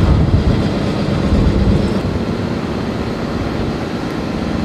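Steady low rumble of heavy machinery at a construction site, with a steady hum that stops about two seconds in.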